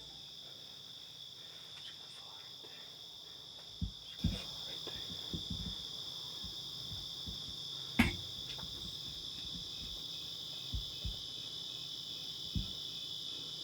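Crickets chirring steadily and loudly, with a few soft knocks and one sharp thump about eight seconds in.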